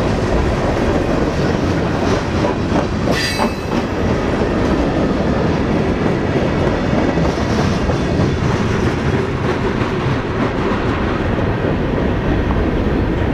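Freight train of tank cars and covered hoppers rolling past close by: steady noise of steel wheels on rail, with a brief high wheel squeal about three seconds in.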